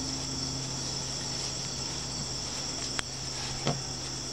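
A steady high-pitched chorus of crickets with a low steady hum under it. A sharp click about three seconds in and a short thump just after.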